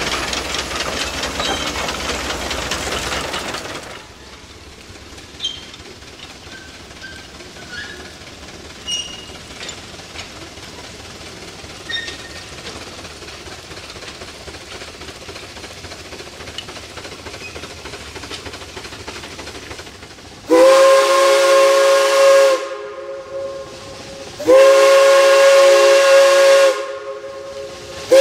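Replica type-A vertical-boiler Climax geared steam locomotive rolling past close by for the first few seconds, then its steam whistle sounding two long blasts of about two seconds each.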